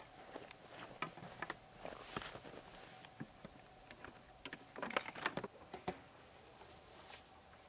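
A person moving about on dry, leaf-strewn ground: scattered footsteps, rustling and light clicks, busiest about five seconds in.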